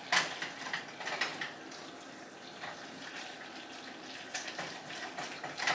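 Running water hissing steadily, with scattered clinks and knocks, the sharpest just after the start and just before the end.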